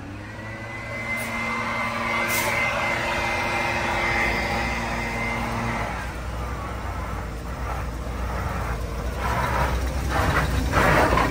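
Heavy truck's diesel engine held at steady high revs under load for about six seconds, then easing off to a lower rumble, with a burst of hiss near the end.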